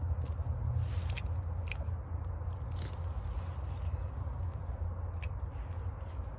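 Scattered small clicks and rustles of hands digging sweet potatoes out of garden-bed soil and pulling the vines, over a low steady rumble.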